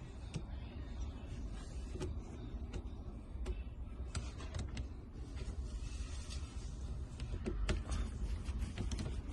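Scattered light clicks and knocks of plastic and metal parts being handled and fitted on a car's steering column, over a steady low handling rumble.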